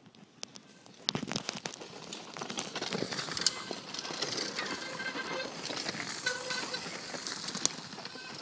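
Downhill mountain bikes riding down a dirt trail past close by: tyres crunching and skidding on loose dirt, with rattling and clicking over the bumps, starting suddenly about a second in.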